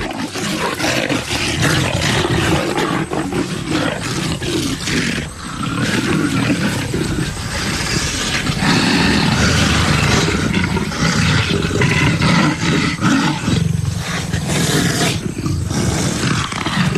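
Two leopards, a male and a female, growling and snarling at each other continuously in an aggressive first-encounter clash, with the male asserting dominance.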